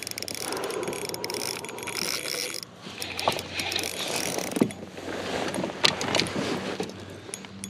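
Spinning reel being cranked to bring in a hooked fish, its gears whirring steadily, with a few sharper clicks around the middle.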